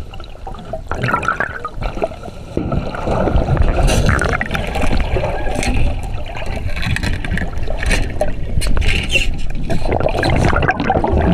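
Rushing, churning water with a heavy low rumble and crackling, and faint voices in the background.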